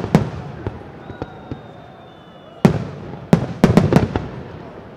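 Aerial fireworks shells bursting, each bang echoing. One bang at the start is followed by a few lighter pops, then a quick volley of about six loud bangs comes just under three seconds in.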